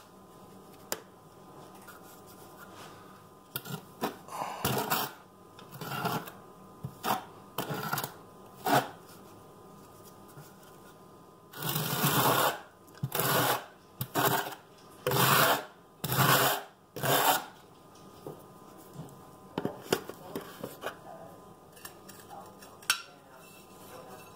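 Steel notched trowel scraping thinset mortar onto a wall in repeated strokes, loudest in a run of about six strokes roughly one a second around the middle, with lighter scrapes and clicks before and after.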